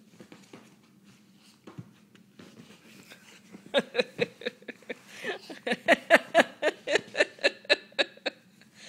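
A woman laughing in a long run of short breathy "ha" bursts, about four a second, starting a little under four seconds in and stopping shortly before the end.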